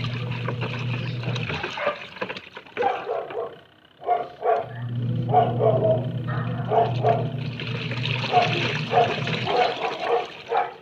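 Washing machine motor humming steadily, cutting out about one and a half seconds in and starting again about five seconds in for another five seconds or so, with short repeated sounds throughout.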